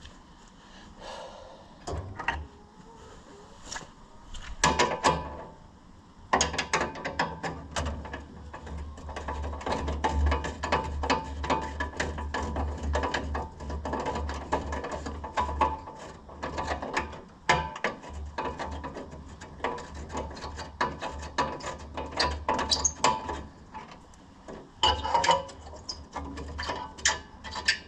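Hand ratchet wrench clicking as bolts are backed out: a few short runs of rapid clicks, then a long, nearly unbroken stretch of fast ratcheting, then a few more short runs near the end.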